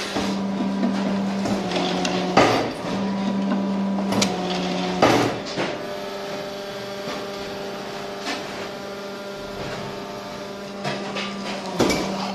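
Fly ash brick-making press running: a steady motor hum with loud metallic clanks about two and a half and five seconds in, and again near the end, as the mould box and press head move.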